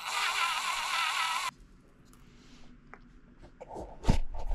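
A drill turning a thread tap in a stripped bolt hole runs with a wavering pitch and stops about a second and a half in. A few light clicks follow, then a sharp knock near the end.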